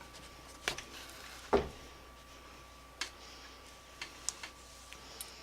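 Scattered small clicks and taps of hand-stitching a leather strap: needle, thread and metal buckle being handled and worked through the leather, about eight separate ticks with the loudest about one and a half seconds in. A faint steady high hum runs underneath.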